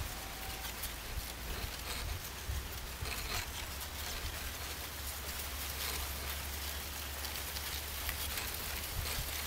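Steady hiss with faint scattered crackles over a constant low hum.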